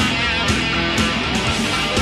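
Rock band playing, with distorted electric guitar over drums that hit about twice a second.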